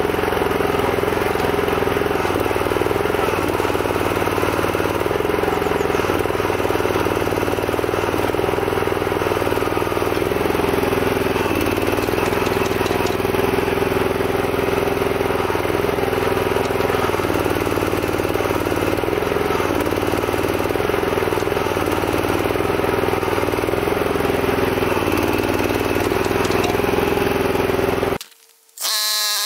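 Small single-cylinder petrol engine (an 11 hp Honda or a clone) running steadily on a homemade hydraulic mini excavator, turning the gear pump by V-belt. Its lower note shifts a little as the hydraulic controls are worked during digging. It cuts off suddenly near the end.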